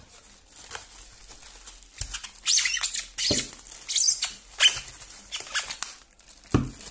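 Resin bookends being pulled out of a polystyrene foam insert: foam squeaking and scraping against the pieces, plastic wrap rustling, and a few dull knocks as the pieces and packaging are set down on a wooden table.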